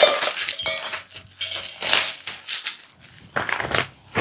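Packaging being torn and crumpled off a newly bought tray, in irregular bursts of rustling, with a few light clinks.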